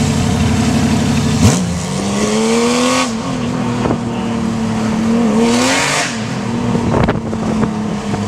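Two-seat IndyCar's engine running at low revs at slow street speed. It starts lumpy and low, rises in pitch about a second and a half in, then holds a steady note with small dips and lifts of the throttle. A short rush of noise comes near the middle.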